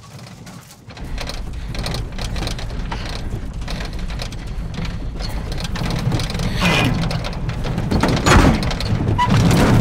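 Old pickup truck's engine running, heard from inside the cab as a steady low rumble that comes in about a second in, with rattling and two louder surges near the end.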